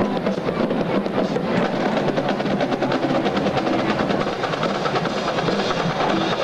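Marching band playing, its drums beating a fast, steady pattern that blurs into a dense rumble.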